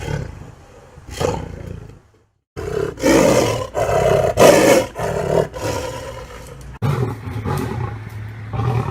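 Lion roaring in a series of deep, grunting calls. There is a brief dead silence about two seconds in, then a loud run of roars. Near the end a different recording cuts in, with calls over a steady low hum.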